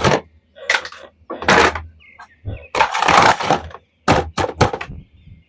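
Plastic toy action figures and packaging being handled in an unboxing: a run of short rustles, clacks and knocks.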